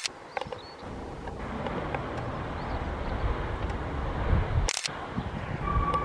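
Jet airliner engines on a takeoff roll, a SunExpress Boeing 737 heard from afar as a rushing noise that grows steadily louder. A camera shutter clicks at the start and again about five seconds in.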